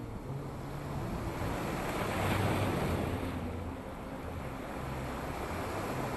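Ocean surf breaking and washing over a rocky seawall, one wave swelling to its loudest about two seconds in and then draining back.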